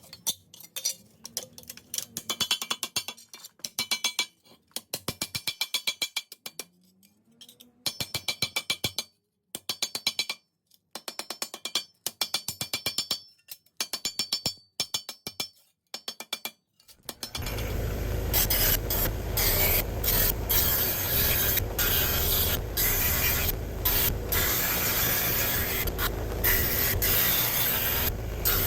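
Ratchet wrench clicking in quick bursts of about a second each, with short pauses between strokes, as fasteners are worked loose. About 17 seconds in, a loud, steady rasping noise takes over.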